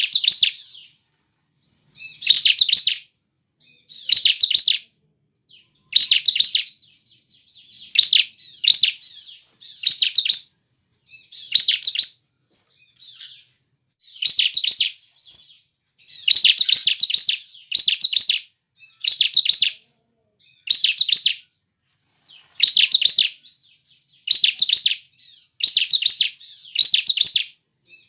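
Bar-winged prinia (ciblek) singing loud, high-pitched chattering phrases of rapid repeated notes, each under a second long, repeated every one to two seconds with short pauses between.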